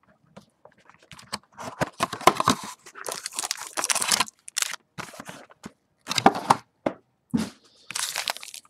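Plastic wrapping being torn and crinkled off a cardboard box of trading cards, in irregular crackling bursts with sharp clicks and short pauses between them.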